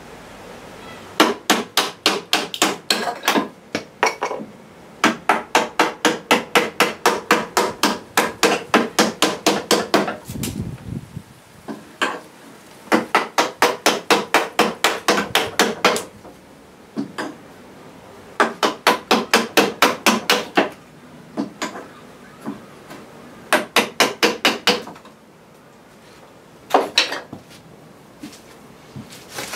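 A bench chisel being driven into a softwood beam by rapid light blows, about four a second in runs of several strokes with short pauses between runs, chopping out a recess.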